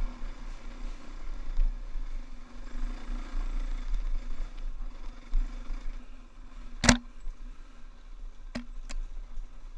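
KTM dirt bike engine running at a steady, moderate pitch, heard from a camera mounted on the bike, with low rumble on the microphone. A sharp knock comes about seven seconds in, and two fainter knocks follow near the end.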